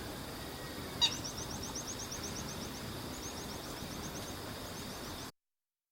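Black-winged stilt giving one loud, sharp call about a second in. A rapid run of short, high chirps follows, then two shorter runs, over a steady high hum. The sound cuts off abruptly near the end.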